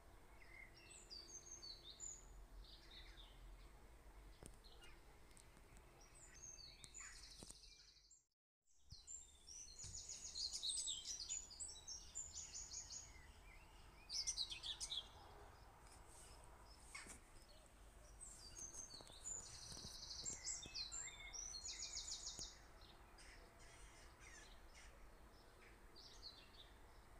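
Faint chirping and rapid high trills of small songbirds, coming again and again over a quiet background. All sound drops out for about half a second a little after eight seconds in.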